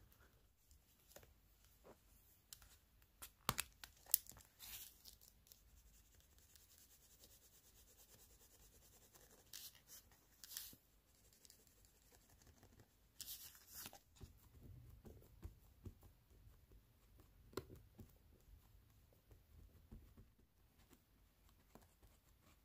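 Faint rustling and crinkling of a paper tissue and a thin clear plastic stencil being handled and dabbed on a journal page to lift ink, with a few sharp clicks about three to four seconds in and short crinkles around ten and fourteen seconds.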